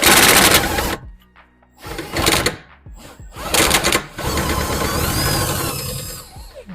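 Impact wrench run in three short bursts, then held on for about two seconds as it spins a loosened suspension bolt out.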